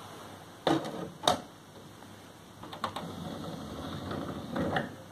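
The disc tray mechanism of a Sony CMT-DX2D mini hi-fi: two sharp clicks about a second in, then the tray's motor and gears running for a couple of seconds, with a few lighter clicks, as a disc is loaded.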